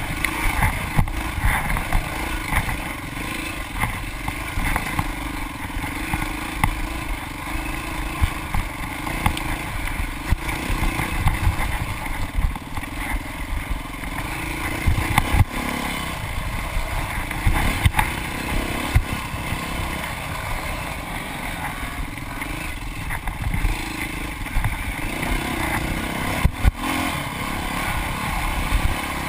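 Off-road dirt bike engine running hard under load on a rough trail, its pitch rising and falling with the throttle, with frequent knocks and clatter as the bike hits bumps.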